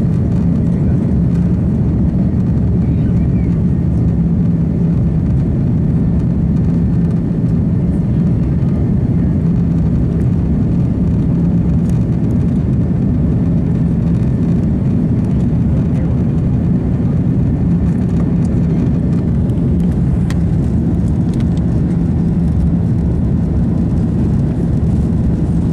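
Cabin noise of an Airbus A330-300 climbing after takeoff, heard from a window seat over the wing: the steady rumble of its GE CF6-80E1 turbofan engines and the rush of air, with a constant low drone and no change in level.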